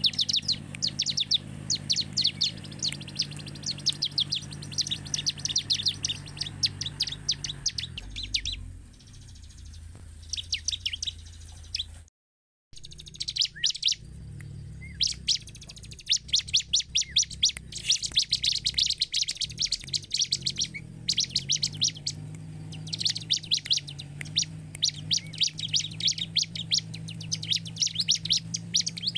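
Bar-winged prinia (ciblek) singing in long runs of fast, high, repeated chirps. The song breaks off about 8 seconds in, the sound cuts out for half a second soon after, and then the chirping runs resume and carry on. A steady low hum runs underneath.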